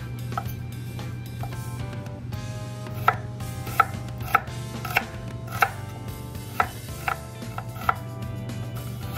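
Chef's knife slicing an onion on a wooden cutting board: about ten sharp knocks of the blade striking the board, sparse at first and then coming every half second to a second from about three seconds in.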